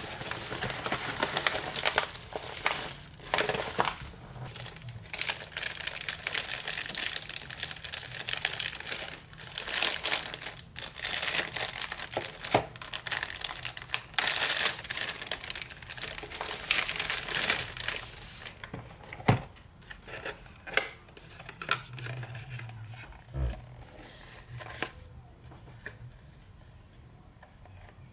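Clear plastic packaging crinkling and rustling as hands unwrap it, with some tearing. Past the middle it quietens to scattered light taps and clicks of handling.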